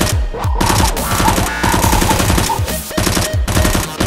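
Rapid machine-gun fire sound effects in bursts over electronic background music with a heavy, deep beat.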